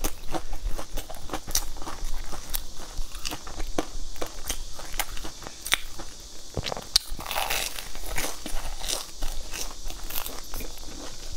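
Biting and chewing crumb-coated fried pastry: the crisp crust crunches and crackles in many quick, irregular clicks.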